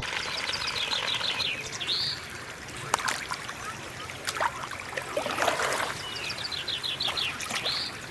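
A songbird singing the same short phrase twice, a quick run of high notes ending in one swooping note, over a steady wash of water-like noise. A single sharp tick near the middle.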